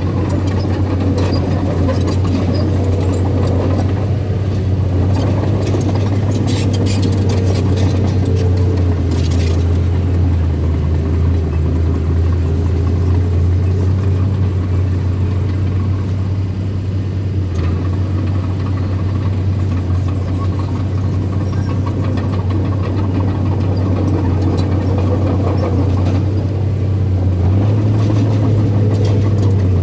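Small bulldozer's diesel engine running steadily while working, with a wavering whine above it and scattered clanks, most of them between about six and ten seconds in.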